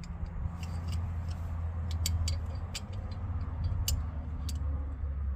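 A few sharp metal clicks of pliers and a pipe wrench on a seized drum-brake adjuster that is being worked back and forth to break it loose. They sit over a steady low rumble.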